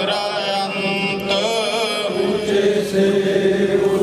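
A man chanting a Sikh prayer in a sustained, slightly wavering sung tone.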